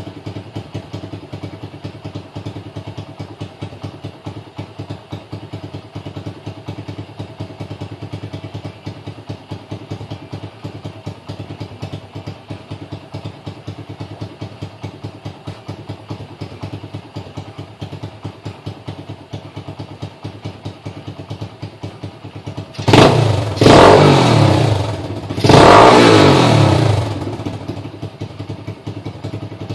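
Apollo ADR 125 dirt bike's single-cylinder four-stroke engine idling with an even putter, then revved hard a few times near the end, the pitch climbing and falling with each blip of the throttle.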